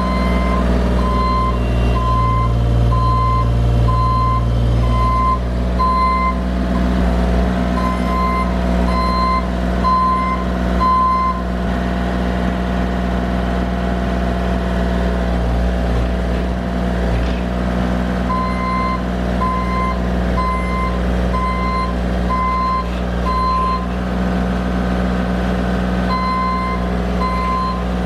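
Bobcat E35 mini excavator's diesel engine running under load as the machine tracks slowly forward, its travel alarm beeping about once every 0.8 s. The beeping stops for several seconds midway, while the engine keeps running, then starts again.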